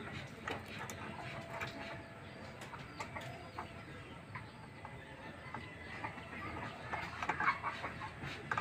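Light, scattered metal clicks and taps of a wrench working the brass flare nut on a copper refrigerant line. A chicken clucks over them in the last second or two.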